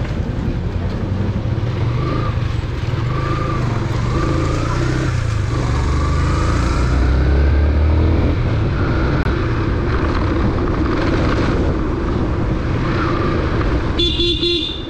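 Motorcycle engine running with steady wind and road noise while riding in traffic. A vehicle horn sounds briefly near the end.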